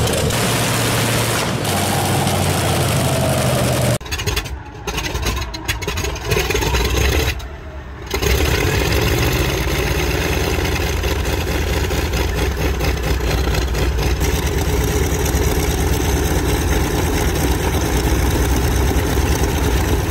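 Pratt & Whitney R-2800 Double Wasp 18-cylinder radial engine running on a test stand with its propeller turning. After a break about four seconds in, the radial engines of a four-engine propliner come up uneven through a short gap in the sound, then settle into a steady running rumble.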